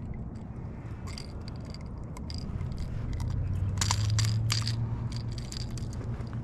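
Steady low rumble with scattered light clicks and rattles, a cluster of them about four seconds in.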